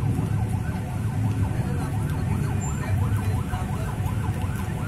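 Emergency vehicle siren in a fast rising-and-falling yelp, about two cycles a second, over a low rumble of street traffic.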